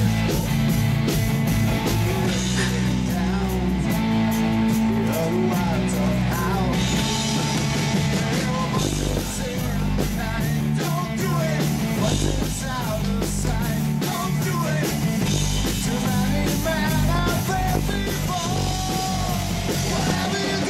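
Rock background music with guitar and a melody line over a steady bass.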